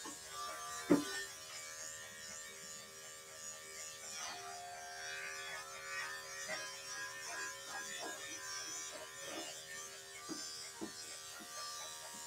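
Corded electric dog-grooming clipper running with a steady hum as it trims a small dog's coat, with a sharp click about a second in.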